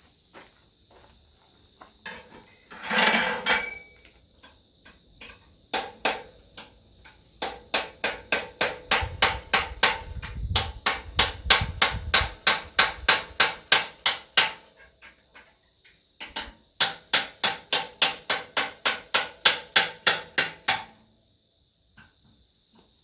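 A short loud clatter about three seconds in, then a hammer striking a steel punch to drive out a large steel pivot pin: two long runs of sharp metal blows at about three to four a second, with a brief pause between them.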